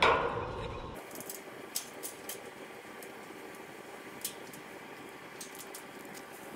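Hand-tool work on steel fence wire: a sharp metallic snap with a short ring right at the start as pliers work the galvanized electric fence wire, then scattered light metallic clicks and ticks as the wire is twisted by hand against the hog-wire panel.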